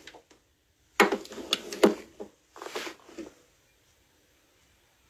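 Handling noise on a phone's microphone: a second or so of rubbing and a few sharp knocks as the phone is moved, a shorter scrape shortly after, then the sound drops out.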